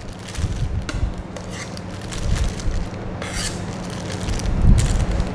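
Plastic piping bag crinkling and rustling as whipped cream is scraped into it with a spatula and the bag is squeezed, with low rubbing thumps and a steady low hum underneath.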